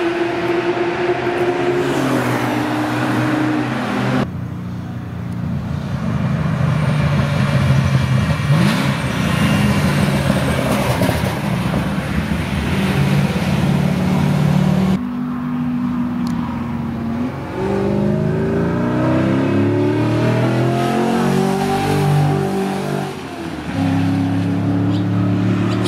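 Straight-piped 6.2-litre LS3 V8 in a widebody BMW E46 328i accelerating hard on track, its pitch climbing with each gear and dropping at the shifts and as it passes. The sound cuts abruptly to a different pass about four seconds in and again near the middle.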